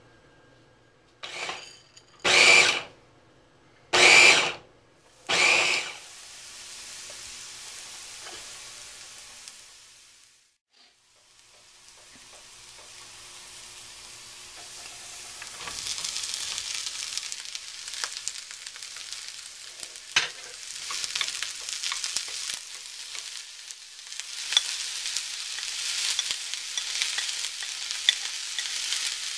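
Onions, sugar snap peas, red bell pepper and garlic sizzling in a frying pan as they are stirred, the crackling growing louder about halfway through. Near the start come four short, loud bursts of noise.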